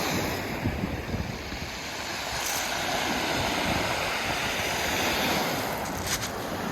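Sea waves washing onto a pebble shore, swelling and easing, with wind buffeting the microphone.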